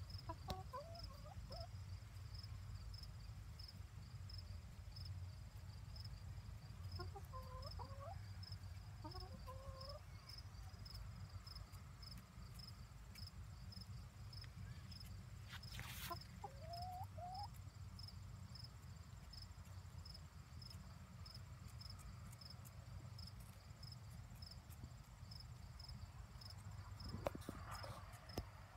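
Silkie chickens giving quiet, short clucks and chirps in a few scattered clusters while they peck at food. Under them an insect chirps steadily at an even pace, and there is a low rumble throughout.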